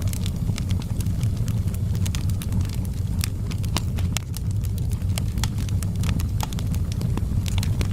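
Fireplace fire crackling: frequent irregular sharp pops and snaps over a steady low rumble.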